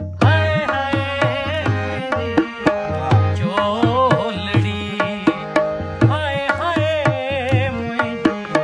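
Sindhi folk song: a harmonium holds steady notes under a man's singing voice, whose held notes bend and waver with vibrato, over a regular tabla-style hand-drum beat.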